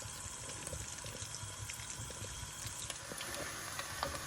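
Onions frying in vegetable oil in a pot: a steady sizzle with many small crackles.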